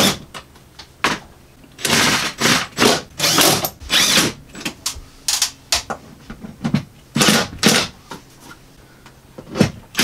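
Cordless drill-driver running in several short bursts, driving screws to fasten a plastic air-conditioner ceiling shroud in place, with sharp clicks of handling between the bursts.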